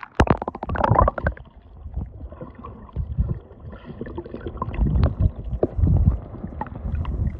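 Splashing and bubbling as the camera breaks through the sea surface, then the muffled, uneven rumble and gurgle of water moving around the submerged microphone, with scattered small clicks.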